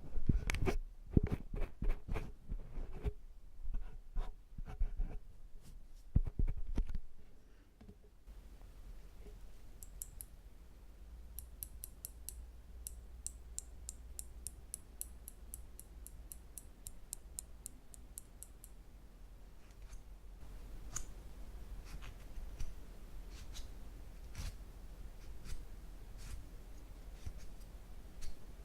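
Close-up clicks and scrapes of metal ear-cleaning tools against a silicone ear model, loudest in the first several seconds. Then comes a quick run of light, sharp ticks, like small snips, for about eight seconds, and scattered clicks after that.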